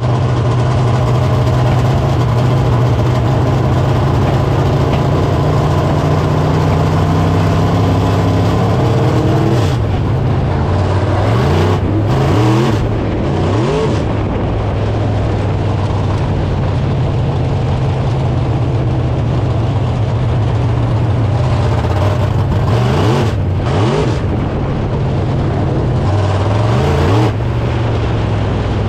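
Dirt late model race car's V8 engine, heard from inside the cockpit, running at a steady drone on the dirt oval. Twice the sound dips briefly and then the pitch climbs quickly, as the throttle is lifted and reopened: once around ten to fourteen seconds in, and again near the end.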